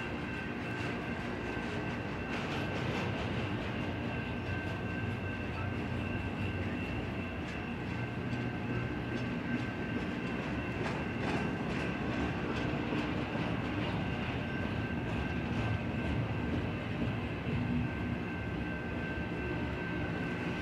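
Double-stack intermodal container cars rolling past, a steady rumble with short clicks of wheels over rail joints, over a steady high-pitched tone.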